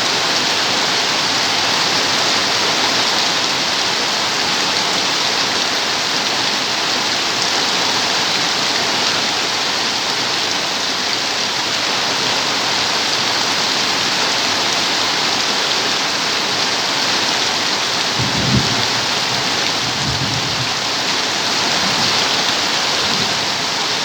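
Steady, dense rain falling, an even hiss with no letup. A couple of brief low rumbles come about three-quarters of the way through.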